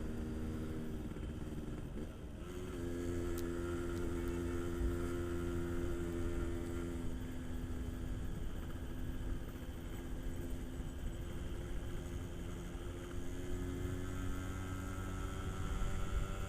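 Yamaha RX-King 135 cc two-stroke single-cylinder engine running at a steady speed while being ridden. About two seconds in it dips briefly and shifts in pitch, then holds steady again.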